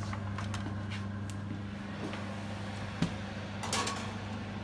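Steady low hum of a fan oven running with its door open, with a sharp knock about three seconds in and a short metallic scrape just after, as a metal roasting tray is slid back onto the oven rack.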